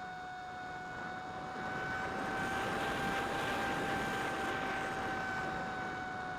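Electric motor and propeller of a 70% scale Versa Wing flying wing heard from its onboard camera: a steady whine over a rush of wind, the pitch and loudness rising slightly about two seconds in and easing a little near the end.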